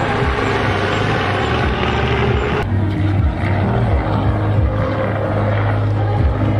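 Steady rumble of a moving vehicle with a strong low hum; the higher hiss drops away suddenly a little over two and a half seconds in.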